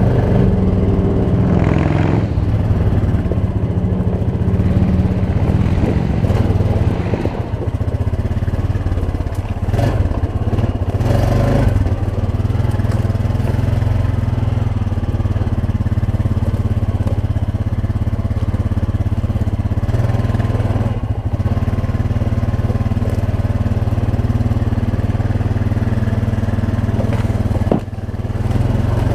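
Honda Rancher ATV's single-cylinder four-stroke engine running steadily while riding, with a few brief dips in engine note, the sharpest near the end.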